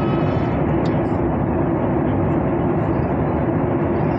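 Airliner cabin noise in cruise flight: a steady drone of engine and rushing air, with a constant low hum running through it.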